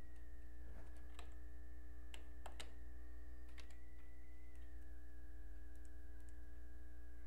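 Computer keyboard keystrokes: a few scattered key presses, mostly in the first four seconds, fewer and fainter later. Under them runs a steady low electrical hum with a thin high whine.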